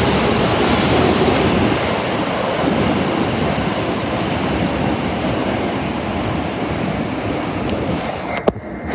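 Tanimachi Line subway train running, a dense rushing rumble without distinct tones, louder in the first second or two. It breaks off abruptly about eight seconds in, with a sharp click.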